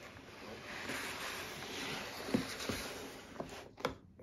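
White plastic plant trays and black nursery pots being shifted and straightened on a wooden tabletop: a steady rustling scrape with a few light plastic knocks in the second half.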